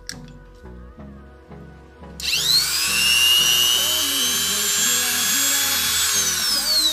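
An electric appliance's motor plugged into a newly wired socket: switched on about two seconds in, it whines up to speed, runs with a steady high whine, then winds down near the end, showing the socket is working. Background music plays underneath.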